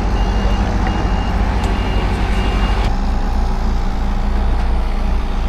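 Heavy vehicle's reversing alarm beeping at an even pace, about three beeps every two seconds, over the vehicle's engine running. The beeping stops about three seconds in and the engine note changes.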